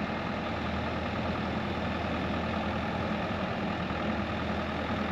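Bobcat E55 compact excavator's diesel engine running steadily as the machine travels forward slowly with a roof truss on its bucket.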